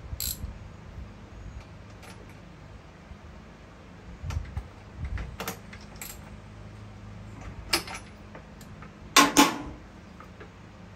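Metal tools and parts clinking and clattering in a series of sharp clanks, the loudest pair about nine seconds in, over a faint low steady hum.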